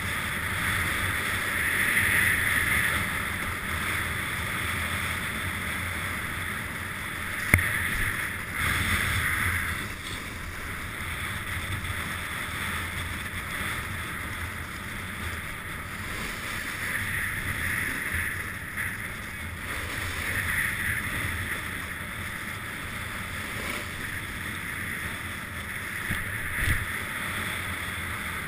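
Snowboard sliding down a groomed, hard-packed slope: a steady scraping hiss of the board on the snow that swells and fades every few seconds as it turns, mixed with wind on the microphone. A sharp click comes about seven and a half seconds in, and a thump near the end.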